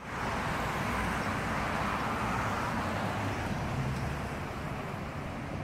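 Passing road traffic: a steady hiss of tyres and engines from cars on a multi-lane road, easing slightly near the end.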